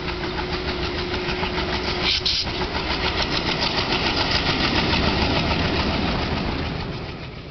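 Diesel locomotive engine running with a rapid, even throb, with a brief hiss a little over two seconds in; it fades out near the end.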